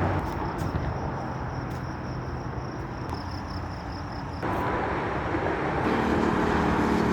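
Steady road traffic noise, with a motor vehicle's engine hum coming in near the end.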